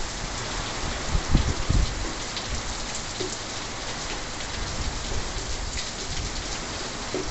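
Heavy rain pouring down steadily, with a few low thumps about one to two seconds in.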